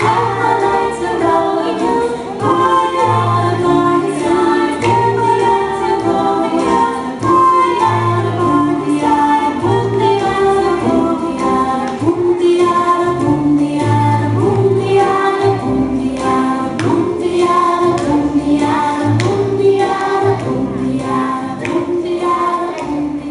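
A group of children singing a song together over an instrumental backing with a regular, repeating bass line.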